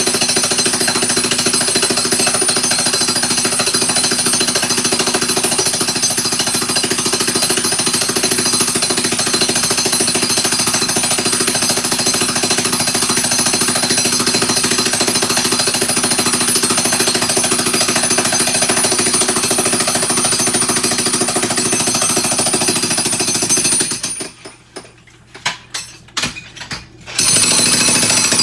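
Jackhammer breaking up floor tile, hammering continuously at a rapid steady rate. Near the end it stops for about three seconds with a few short blips before hammering resumes.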